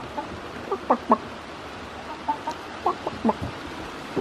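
About half a dozen short clucking calls, each a quick falling note, over the steady hiss of rain.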